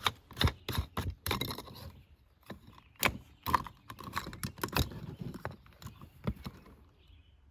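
Irregular plastic clicks and knocks as an old 30 amp RV inlet plug and its collar are handled and drawn out of the camper wall on their Romex cable, thinning out near the end.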